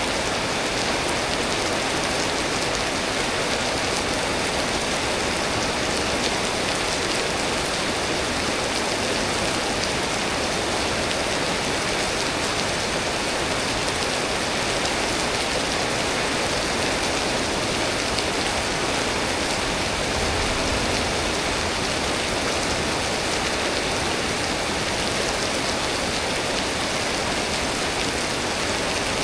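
Steady rain from a tropical storm, falling as a dense, even hiss with no breaks or changes.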